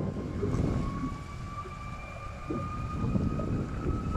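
Jet engines of a distant Airbus A330-300 spooling up for takeoff: a thin whine that rises slowly in pitch over a steady low rumble.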